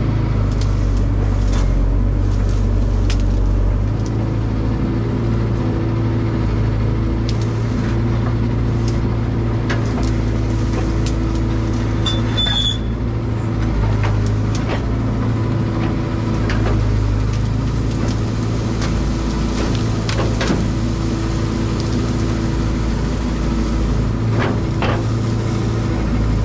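Caterpillar excavator's diesel engine running steadily, with scattered knocks and clanks from the machine at work.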